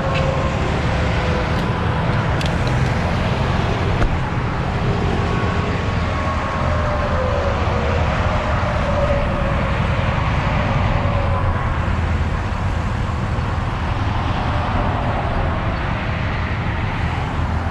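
Steady interstate traffic noise: cars and semi trucks passing at highway speed over a constant low engine rumble, with a faint tyre whine that slowly drops in pitch around the middle as vehicles go by.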